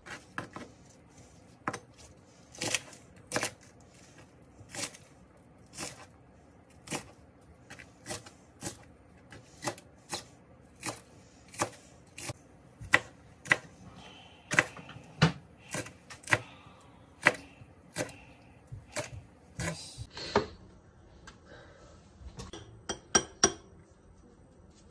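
Kitchen knife chopping green onions on a plastic cutting board, in steady, evenly spaced strokes, about three every two seconds. Near the end, after a short pause, a quick run of sharp clicks.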